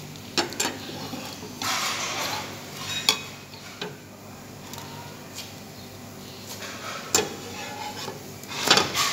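A metal fork clicking and scraping against nonstick frying pans as pancakes are turned. There are a few sharp taps spread through, and the loudest scrape comes near the end.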